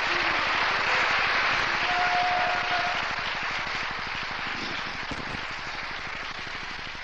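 Congregation applauding, loudest in the first three seconds, then dying away.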